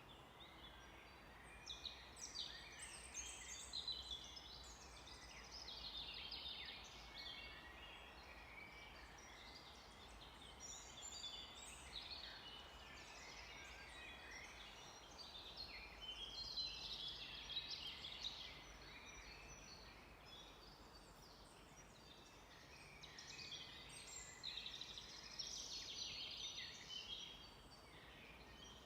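Forest songbirds singing faintly, in several bouts of quick, high chirps and trills.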